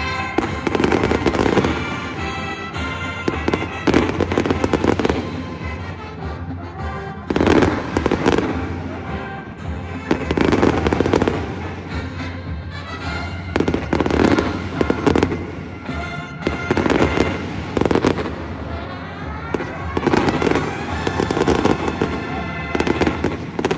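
Aerial fireworks bursting over and over, sharp bangs with crackling, in quick succession, with music playing underneath.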